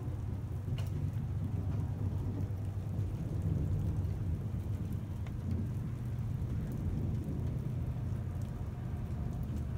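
Thunder rumbling low and steadily through a rainstorm, swelling slightly about three to four seconds in, with faint rain and a few small drop ticks.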